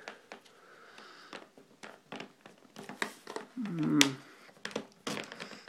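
Knife scoring and prying at a hard clear plastic clamshell package: a run of sharp clicks and crackles of the plastic, with a short low wavering sound just before the loudest snap about four seconds in.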